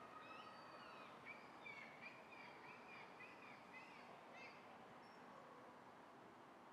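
Faint bird calls: a run of short, repeated chirps, about two or three a second, for a few seconds in the middle, over a steady background hiss.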